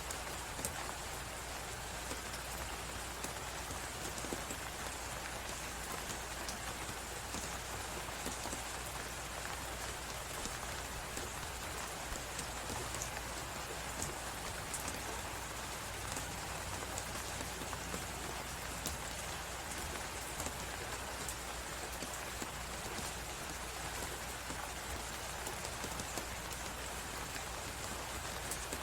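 Crackling fireplace with scattered small pops over a steady hiss of blizzard wind and snow.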